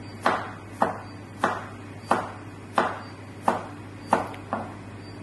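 Chef's knife chopping carrots on a plastic cutting board: eight sharp, evenly paced knocks of the blade on the board, about one every two-thirds of a second.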